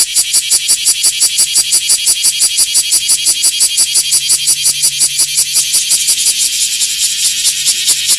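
Cicada song: a loud, pulsing buzz at about six or seven pulses a second, steady throughout.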